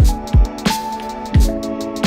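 Electronic background music: deep kick drums that drop in pitch about once a second, sharp snare-like hits between them, over sustained chords.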